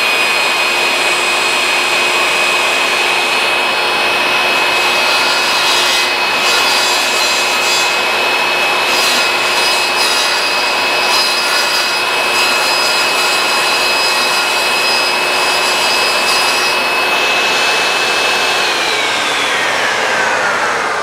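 Jobsite table saw running at full speed with a steady whine, its blade rasping irregularly against a wooden dowel turned by hand in a jig over the blade, shaving it down to size. Near the end the saw is switched off and its whine falls in pitch as the blade coasts down.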